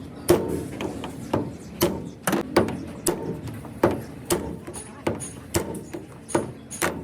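Repeated hammer blows on metal, about two a second, unevenly spaced, each with a short ring.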